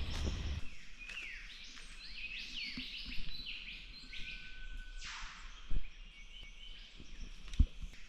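Chorus of many rainforest birds calling: quick chirps and rising and falling whistles, with one held whistle and a sharp downward-sweeping note about five seconds in. Two brief knocks, one past the middle and one near the end.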